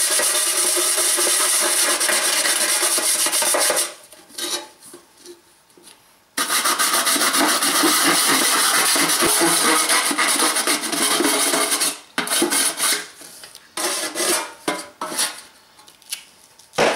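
Hand-held abrasive pad rasping along the cut sheet-metal edges of a door opening in a 5-litre beer keg, deburring them smooth. It rubs steadily, stops about four seconds in, resumes after a couple of seconds, then breaks into shorter separate strokes over the last five seconds.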